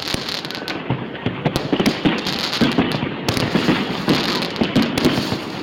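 Fireworks going off: rapid, continuous crackling and popping of many small bursts, growing busier about two seconds in.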